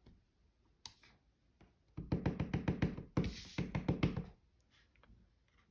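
A clear acrylic stamp block is tapped rapidly and repeatedly onto an ink pad to ink the stamp: a quick run of hard little knocks, about eight a second, starting about two seconds in and lasting about two seconds.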